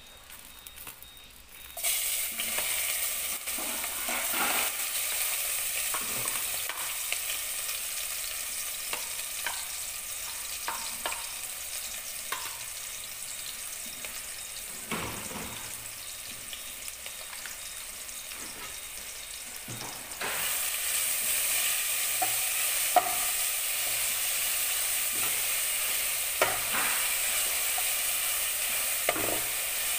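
Sliced red onions sizzling in hot oil in an aluminium pot on a gas stove. The sizzle starts suddenly about two seconds in and gets louder again about twenty seconds in, with occasional scrapes and knocks of a metal spatula stirring against the pot.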